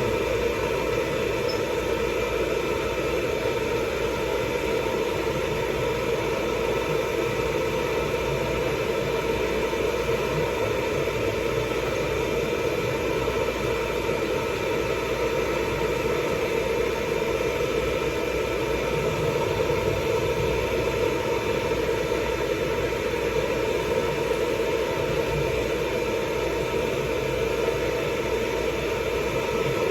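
Hair dryer running steadily, a rush of blown air with a constant motor hum of several steady tones.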